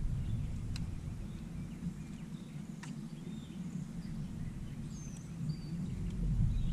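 Small birds chirping now and then from the shore over a low, steady rumble, with two sharp clicks in the first three seconds.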